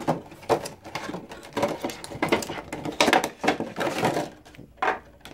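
Clear plastic packaging crinkling and clattering as it is handled and pulled apart by hand, in irregular crackles with short pauses.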